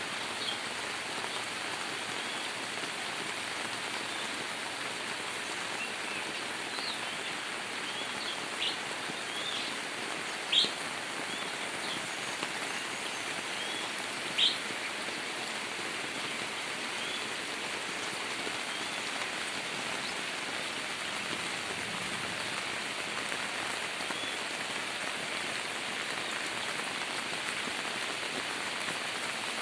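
Steady heavy rain pouring down, with scattered short bird chirps over it through the middle stretch and a few brief louder sounds about 9, 10.5 and 14.5 seconds in.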